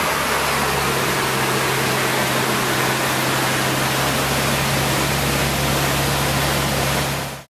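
Ferrari 458 Spider's 4.5-litre V8 with an Akrapovic titanium exhaust idling steadily under a loud, even rushing noise. The sound cuts off abruptly near the end.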